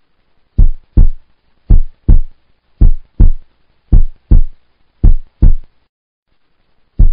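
Heartbeat sound effect: deep lub-dub double thumps, five pairs about a second apart, then a pause of about a second and a half before another beat begins at the very end.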